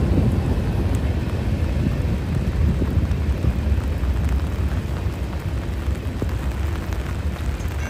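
Norfolk Southern train rumbling by in a heavy downpour: a steady low rumble under the hiss of pouring rain, growing gradually quieter.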